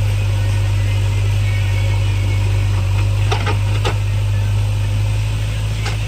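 Backhoe loader's diesel engine running steadily with an even low hum, with a few short clicks about three and a half seconds in and again near the end.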